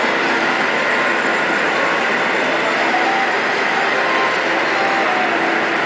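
Children's ride-on miniature train running around its track: a steady rolling noise of wheels on rail with no distinct clickety-clack rhythm, echoing in a large hall.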